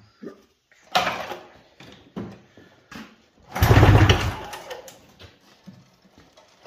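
Rotax 377 two-stroke twin snowmobile engine cranked by its pull-cord recoil starter with the spark plugs out, turning over against a compression gauge. A few short tugs and rattles, then one hard pull about three and a half seconds in.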